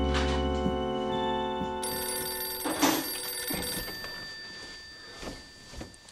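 Background music fading out, then a telephone ringing from about two seconds in.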